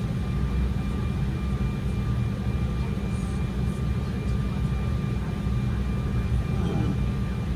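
Steady cabin drone inside an Embraer E175 on the ground during pushback: a low, even rumble from the aircraft's engines and air systems, with a faint steady high whine over it.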